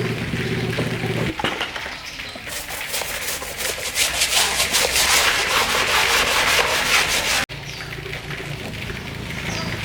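Rapid rhythmic rubbing noise from cleaning a dirty tiller, loudest in the middle stretch. A steady low machine hum plays before it and again after a sudden cut near the end.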